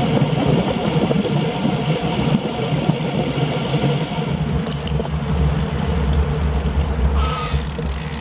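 Wind buffeting a bike-mounted camera's microphone, mixed with tyre and road noise from a road bicycle riding on pavement: a steady, uneven low rumble that gets heavier about halfway through.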